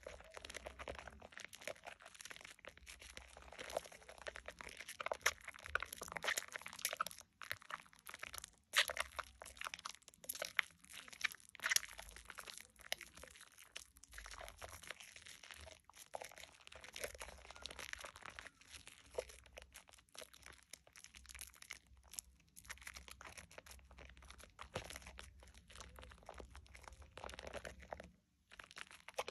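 Hands squeezing and kneading a bar of Dove shea butter soap in thick foam, a steady wet squelching and crackling of lather, with a couple of brief pauses.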